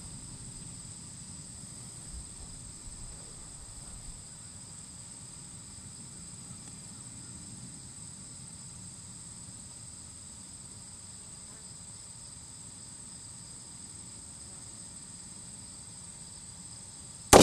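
Insects chirping steadily in the background, a continuous high-pitched trill.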